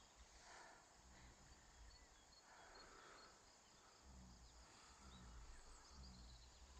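Near silence: faint woodland ambience with scattered small bird chirps.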